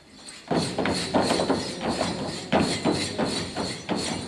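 Dancers' feet stamping on a stage in a folk dance, a run of sharp knocks in uneven groups of several a second, starting about half a second in.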